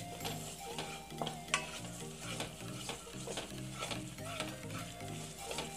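A wooden spatula stirs and scrapes a butter-and-flour roux as it fries and sizzles in a non-stick pan, in short irregular strokes.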